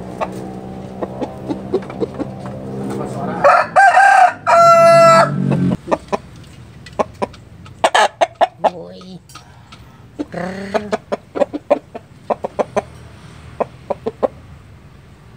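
Rooster crowing once, a loud drawn-out call about four seconds in, followed by short clucking calls.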